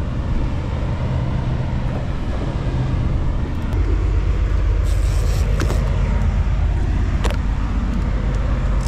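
Boat's quad 300 hp outboard engines running at low speed as a steady low hum, growing louder about four seconds in, with wind and water noise; a short hiss near five seconds and a couple of light clicks.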